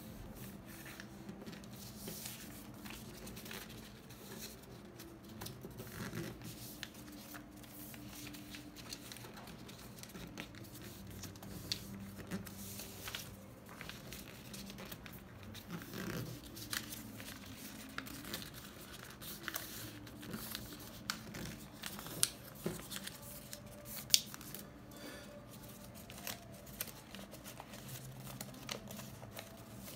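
A sheet of printed paper being pleated and creased by hand against a wooden tabletop: irregular rustling and crinkling with many small crackles, and one sharper crack late on.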